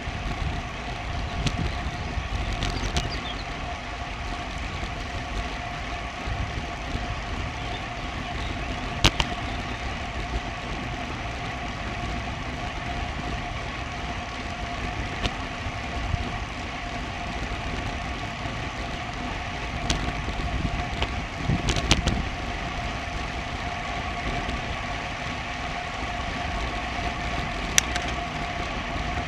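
Wind and road rumble on a bicycle-mounted action camera while riding, with a faint constant whine over it and a few sharp clicks and knocks from the bike.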